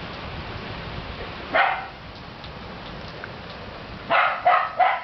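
A dog barks once, then three times in quick succession near the end, over the steady hiss of rain.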